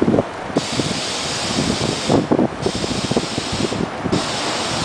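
R42 subway train rolling slowly along the platform, its wheels clattering and rumbling on the rails. A loud hiss cuts in and out three times.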